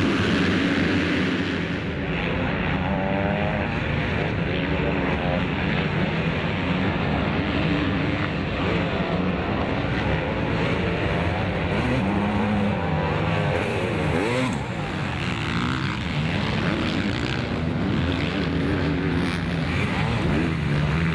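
Motocross motorcycle engines racing, revving up and down as the riders work the throttle and shift gears.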